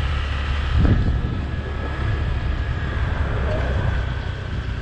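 Wind buffeting the microphone during a motorbike ride, a steady low rumble over the bike's running noise, with a brief louder gust about a second in.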